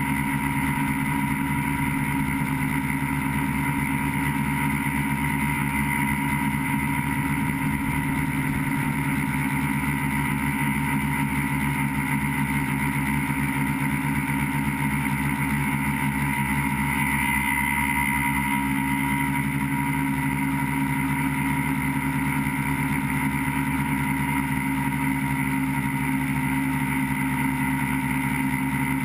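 Multirotor tricopter's motors and propellers buzzing steadily in flight, heard from the camera mounted on the craft: a constant whine that holds its pitch.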